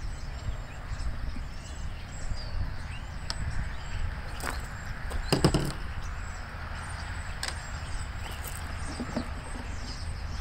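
Scattered small clicks and knocks of a screwdriver and the plastic engine cover of an Echo PB500H leaf blower being handled as the cover is unscrewed and lifted off. The loudest is a short clatter about halfway through, over a steady low rumble.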